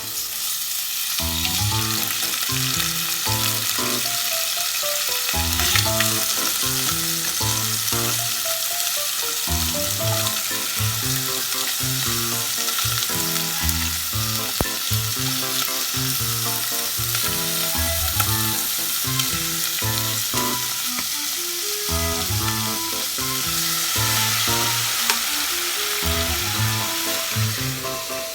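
Vegetables sizzling as they fry in a pan for curry, a steady hiss, with background music and its bass notes underneath.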